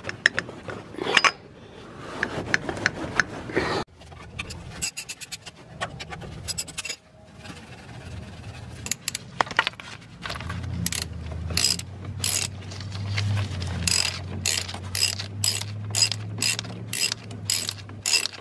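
Socket ratchet clicking in a steady rhythm, a few strokes a second, as it spins out a freshly loosened brake caliper bracket bolt. Irregular metal clanks of tools being handled come before the ratcheting.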